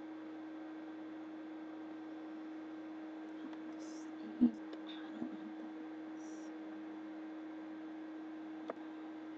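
A person's hiccups from a persistent bout that will not stop: one short, sharp hiccup about four and a half seconds in, a smaller one just under a second later, and a brief click near the end, over a steady electrical hum.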